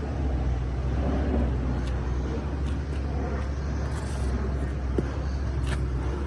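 Heavy equipment diesel engine running steadily at idle, a low even drone, with a few faint ticks and one sharp click about five seconds in.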